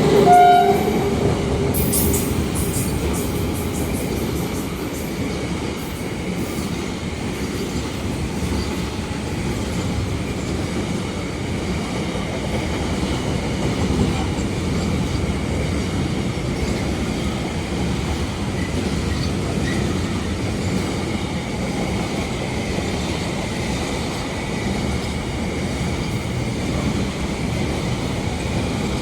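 A passenger train running past at speed, with a steady rumble and the clatter of wheels over the rails. A horn note cuts off about half a second in.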